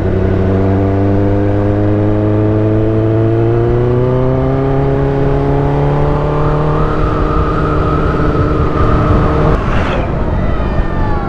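Kawasaki ZX-10R inline-four engine pulling in gear, its pitch rising slowly and steadily for several seconds. The engine note drops away suddenly near the end.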